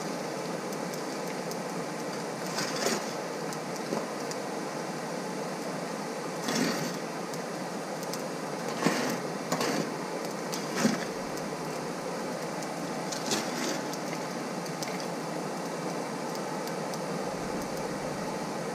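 Steady rush of air from a hair dryer used as the forge blower, feeding the fire. It is broken by about half a dozen short clinks and scrapes of anthracite nut coal being piled around the sides.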